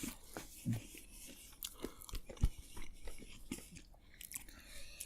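Soft, irregular crunching clicks of a person chewing a spicy tortilla chip.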